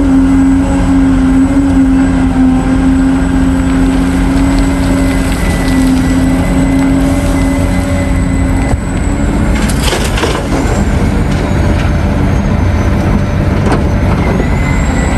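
Large CAT mining excavator's diesel engine and hydraulics working under load, a steady heavy running sound, with rock crunching and a few sharp cracks about ten seconds in.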